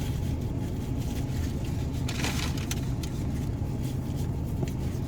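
Steady low rumble of an idling car, with a man quietly chewing a mouthful of burger and a brief rustle about two seconds in.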